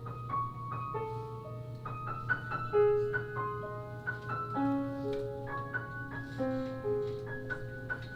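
Piano playing a song's introduction: a flowing line of single notes, about two or three a second, each ringing and fading. A steady low hum sits underneath.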